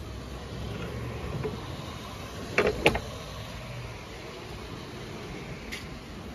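Steady low outdoor rumble, with two quick sharp knocks close together near the middle.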